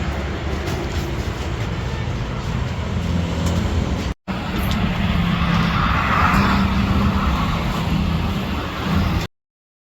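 A car driving, with steady engine and road rumble. The sound cuts to silence briefly about four seconds in, and again near the end.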